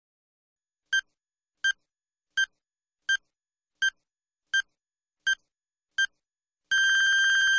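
Countdown timer sound effect: eight short electronic beeps at an even pace of a little more than one a second, all on the same pitch, then one long beep lasting about a second near the end.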